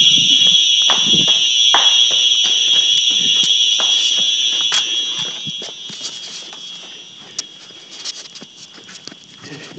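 Simplex 4903-9236 fire alarm sounding a steady high-pitched tone, growing steadily fainter, with regular footsteps about one a second.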